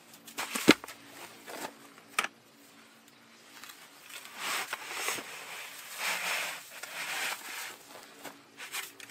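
Wet sand sliding out of a plastic five-gallon bucket and falling onto grass in a growing heap. The sliding is a rising and falling hiss over the second half. Two sharp knocks come about one and two seconds in.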